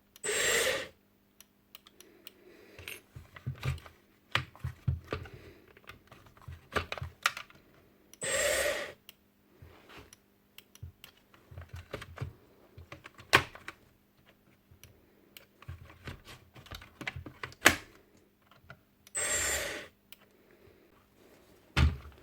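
Makita DBN600 nail gun's brushed motor spinning up for under a second and stopping, three times, amid small clicks and rattles of parts being handled. The motor makes only a brief attempt to start each time, which is the fault being traced.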